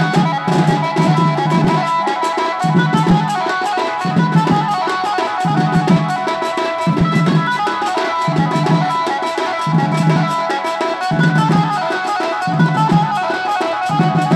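Folk dance music: drums beating a low repeating pattern about once every second and a half, with a steady melody line above.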